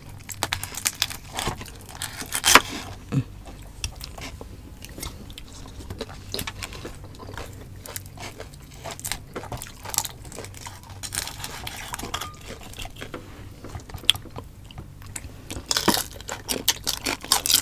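Eating roast suckling pig: chewing and biting with irregular sharp crunches and crackles, the sound of its crisp roasted skin.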